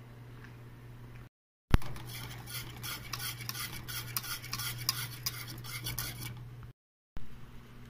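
A spoon stirring milk in an aluminium saucepan, scraping and clinking quickly and continuously against the pan for about four seconds. It begins with a sharp click and is set off by two brief gaps of dead silence.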